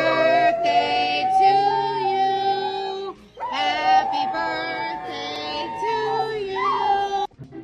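A pit bull-type dog howling in long, wavering notes, in two stretches with a short break about three seconds in, with singing beneath it.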